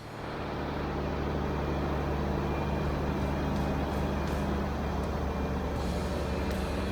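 Heavy diesel equipment engine running steadily at a constant speed, a low even hum with a rattly noise over it.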